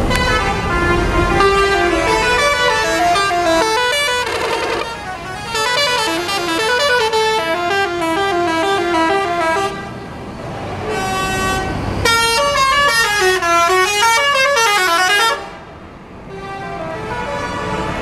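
Multi-tone musical bus horns (telolet horns) playing stepped melodies in long loud runs, with short breaks about five and ten seconds in. The horns stop about three seconds before the end, leaving engine and traffic rumble.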